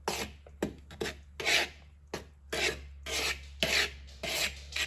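A metal spoon stirs seasoned flour in a plastic mixing bowl, scraping in quick repeated strokes, about two a second.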